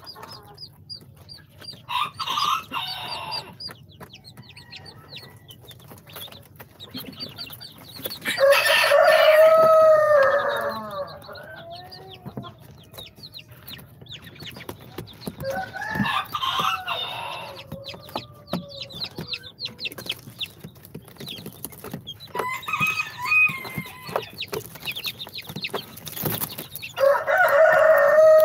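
A brood of baby chicks peeping continually, many short high falling peeps overlapping. Louder, lower, drawn-out calls of grown chickens cut in about five times, the loudest about eight seconds in and again near the end.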